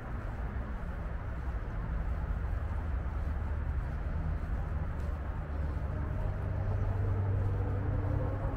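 Low, steady rumble of distant motor traffic. An engine's pitch climbs slowly over the last two seconds or so.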